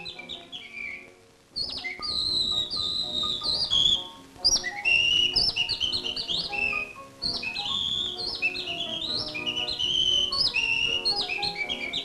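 A man whistling imitations of birdsong: quick, high, sliding chirps and trills in short phrases with brief breaks, over a piano accompaniment.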